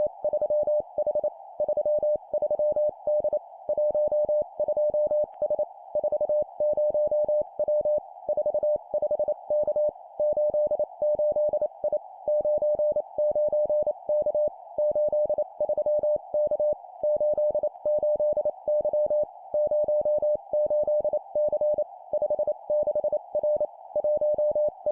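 Morse code (CW) sent at 25 words per minute as a single mid-pitched sidetone keyed rapidly on and off, in three-character groups of two digits and a letter. A steady hiss sits behind the tone.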